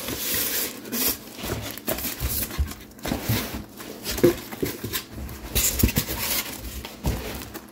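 A small cardboard box being torn open: irregular tearing and rustling of cardboard with scattered knocks.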